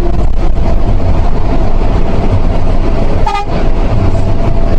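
Intercity bus running on the road, a loud steady engine and road rumble. About three and a half seconds in, a short horn toot sounds.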